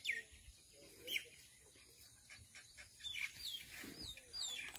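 Bird calls: short, high notes that slide down in pitch, repeated several times and coming more often in the second half. A soft low thump comes about four seconds in.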